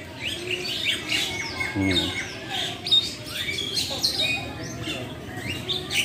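Many birds chirping and calling at once in short, overlapping calls. A brief human voice comes in about two seconds in.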